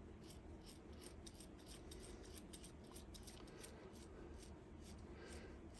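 Faint, rapid scratchy ticks and rubbing as the Handy Helper's front stabilizer roller assembly is screwed on by hand, its threads turning.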